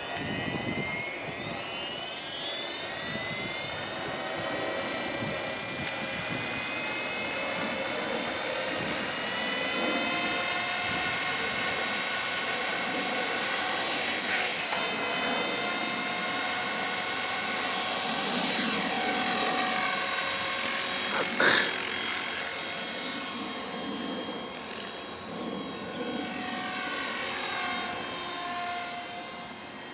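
Align T-REX 450 electric RC helicopter's motor, gears and rotors whining as it spools up, rising in pitch over the first four seconds. The whine then holds high and steady in hover and flight, rising and falling with the throttle and swelling briefly about 21 s in and again near the end.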